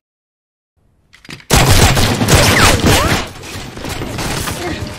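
Film-soundtrack gunfight: after about a second and a half of silence, loud, rapid gunfire breaks in suddenly and keeps going as a dense barrage, easing a little about halfway through.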